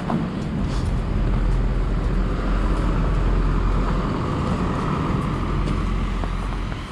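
Street traffic: a motor vehicle drives past, its tyre and engine noise swelling about two seconds in and fading near the end, over a steady low rumble.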